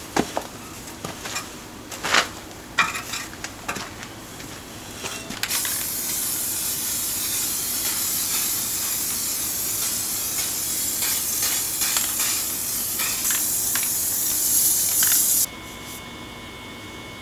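Scattered clicks and knocks, then a loud, steady sizzling hiss from the bamboo-fired camping stove, starting about five seconds in and cutting off abruptly near the end.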